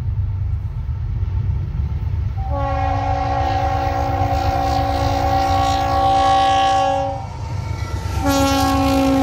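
Horn of an approaching Norfolk Southern GE freight locomotive: one long multi-note chord lasting about four and a half seconds, then a short break and a second blast starting near the end. A steady low rumble from the oncoming train runs underneath.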